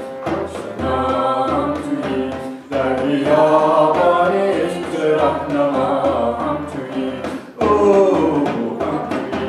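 Voices singing a chant-like melody together, accompanied by a frame drum beating a steady low pulse about twice a second and a harmonium.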